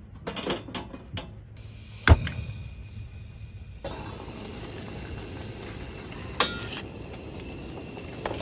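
Light knocks and clinks of hard objects being handled, with a sharp knock about two seconds in and another about six and a half seconds in. From about four seconds a steady low hiss runs underneath.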